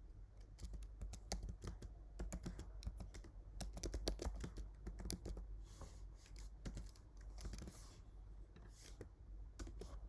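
Typing on a computer keyboard: irregular bursts of key clicks, over a low steady hum.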